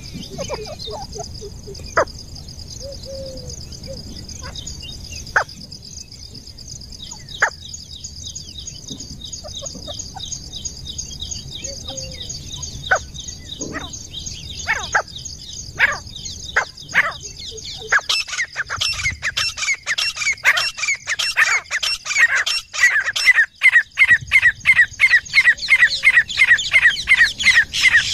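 Grey francolin calling: after scattered sharp clicks over a steady high insect drone, a fast run of loud, rapidly repeated calls starts about two-thirds of the way in, several a second, growing louder.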